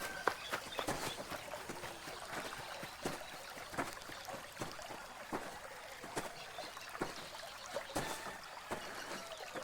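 Layered rural ambience: a steady scatter of light, irregular clicks and knocks over a faint hiss, with a few short, faint high calls.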